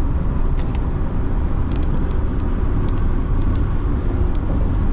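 Steady road and engine noise inside a car cruising on a freeway: a continuous low rumble, with a few faint, scattered ticks.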